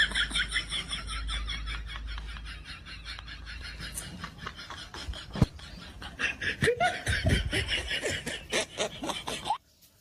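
Laughter: a continuous run of rapid ha-ha pulses that eases off in the middle, picks up again and cuts off abruptly near the end.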